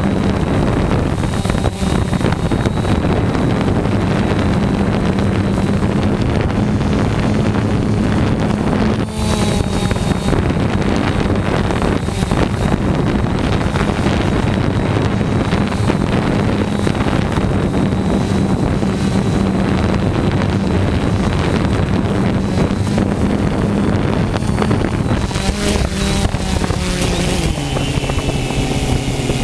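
Quadcopter's electric motors and propellers spinning steadily while it sits on the ground, close to the microphone, with the propellers' wind on the microphone. Near the end the motor pitch shifts up and down.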